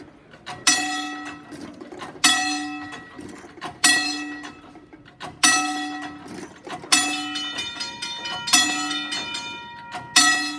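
Railway level-crossing gong bell struck slowly by hand, seven times at about one-and-a-half-second intervals, each stroke ringing on and fading before the next.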